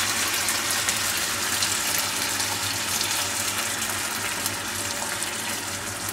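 Beaten egg and sauce sizzling and bubbling around chicken in a large, very hot pan: a steady hiss dotted with small crackles that slowly fades. The cook suspects the pan was too hot, as the egg sets like a fried egg.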